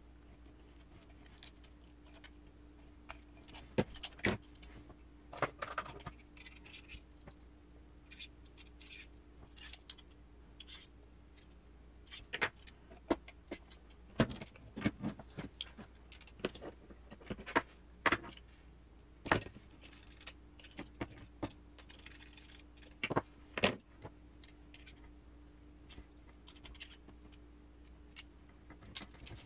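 Small metal parts and hand tools clicking and clinking irregularly as screws are driven by hand with a hex driver and a screwdriver into an aluminium RC crawler chassis rail and leaf spring mount.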